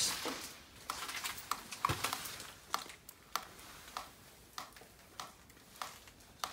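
Footsteps on a rubble-strewn floor: irregular light crunches, clicks and scuffs, several a second, in a small echoing room.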